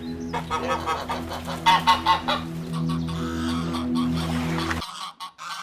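Domestic geese honking repeatedly in short calls over the first half, over a steady background music chord that cuts off shortly before the end.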